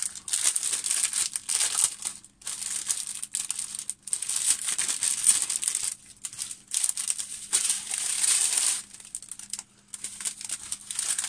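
Plastic packaging crinkling as it is handled, in stretches of a second or two with short pauses between.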